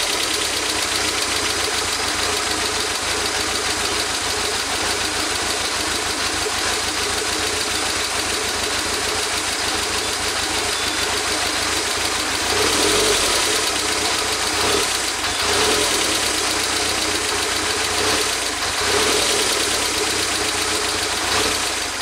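1992 Toyota MR2's 2.0-litre turbo four-cylinder idling with a misfire while propane is fed into the intake manifold to richen a lean mixture. A steady hiss runs over the engine, and the engine sound swells briefly a few times in the second half.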